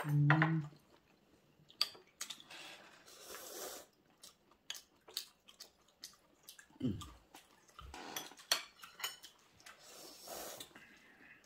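Scattered light clicks and clinks of metal chopsticks against ceramic plates and dishes as people pick up and eat sashimi, with a brief low murmur at the start and another about seven seconds in.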